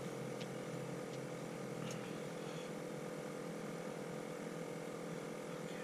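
Faint, steady hum of an engine running, with a few faint ticks.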